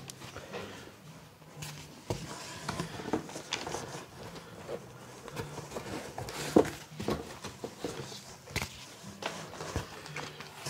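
Cardboard packaging being handled by hand: flaps and cardboard inserts scraping and rustling, with a plastic-sleeved paper booklet crinkling and scattered short knocks. One sharp knock about six and a half seconds in is the loudest sound.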